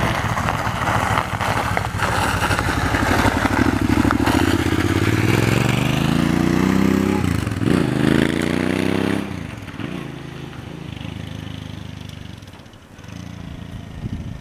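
Small engine of an open-frame off-road buggy accelerating, its note rising steadily. It passes close by about seven to eight seconds in with a drop in pitch, then fades as the buggy drives away.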